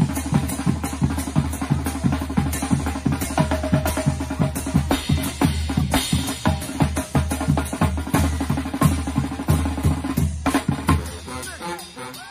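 Drum-led music with a fast, steady beat of bass drum and snare strokes, which breaks off about ten and a half seconds in and gives way to quieter sound.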